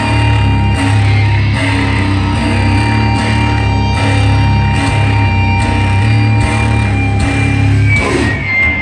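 Loud heavy music: distorted electric guitars and bass holding low, sustained chords that change every second or so, with a break in the pattern near the end.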